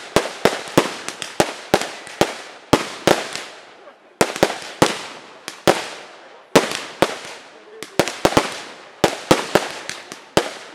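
Fireworks display firing a rapid, irregular barrage of sharp bangs, several a second, each with a short echoing tail as the shells burst overhead; the bangs ease briefly about a third of the way in, then pick up again.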